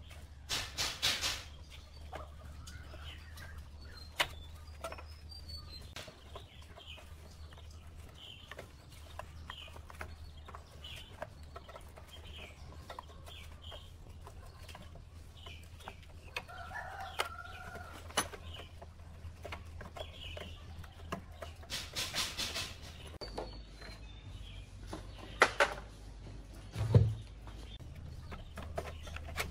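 Chickens clucking, with a longer call about halfway through, over scattered clicks and knocks of metal parts being handled on a small engine; a sharp knock near the end is the loudest sound.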